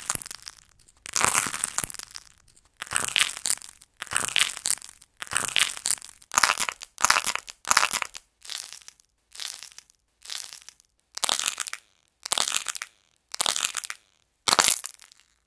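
Modelling clay being squeezed and broken apart by hand close to the microphone, cracking and crunching. It comes in short crackling bursts about once a second, with brief pauses between squeezes.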